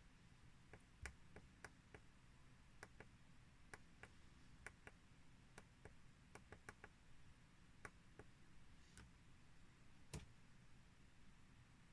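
Near silence with faint, irregular light clicks and ticks, about two a second, one a little louder near the end.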